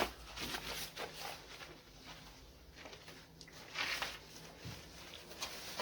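Paper towel rustling and rubbing in short strokes as excess windscreen glue is wiped from around a freshly fitted rear window, with a louder rubbing stroke about four seconds in.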